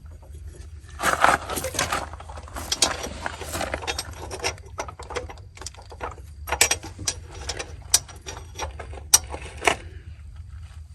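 Irregular metallic clicking and clattering from hand-tool work on the machine, in several bunches of rapid clicks, over a steady low hum.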